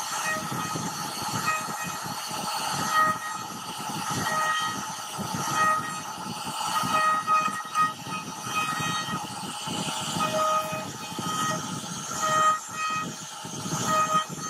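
CNC router spindle cutting wood with a large carving bit: a pitched whine that swells and fades again and again as the cutter's load changes, over a rough, crackly cutting noise.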